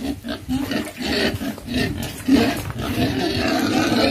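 A pen of young domestic pigs squealing and grunting loudly; the noise swells a little over two seconds in.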